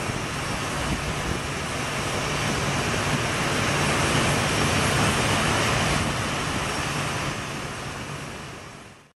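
Jet aircraft engine noise on an airport ramp: a steady, rushing hum that fades out over the last few seconds.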